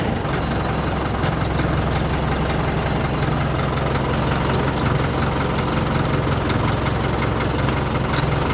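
Diesel engine of an old Csepel D-350-series fire truck running steadily, heard from inside the cab.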